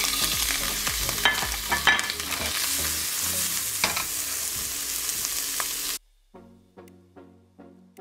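Raw shrimp sizzling in a hot nonstick frying pan just after being tipped in, with a few sharp clicks. About six seconds in, the sizzle cuts off abruptly and background music takes over, with plucked notes about two a second.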